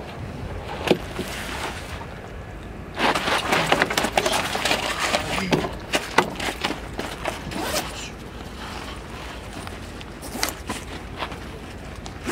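Hurried rustling, scraping and clatter of books, papers and a fabric pencil case being shoved into a backpack on a wooden picnic table, busiest from about three to eight seconds in, with scattered knocks after.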